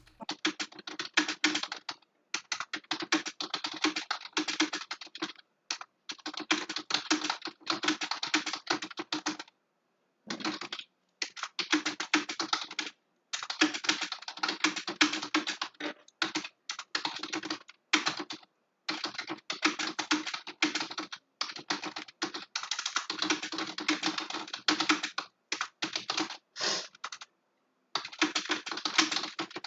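Fast typing on a computer keyboard during a timed typing test: rapid runs of keystrokes broken by short pauses, the longest about a third of the way in and near the end.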